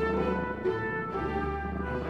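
Background music of slow, held notes.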